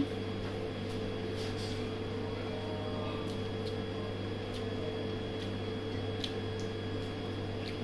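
Steady machine hum from an electrical appliance, with a few faint clicks.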